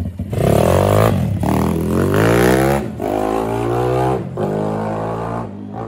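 MRF 140 RC-Z pit bike's 140 cc four-stroke single-cylinder engine pulling away under throttle: the revs climb, drop back, and climb again three times as it shifts up through the gears, and it is quieter near the end as the bike rides off.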